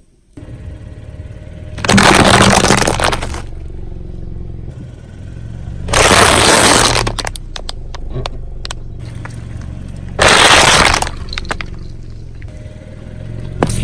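A car tyre rolling over and crushing objects. There are three loud crunching, breaking bursts a few seconds apart, with a scatter of small cracks after the second, over the low hum of the car's engine.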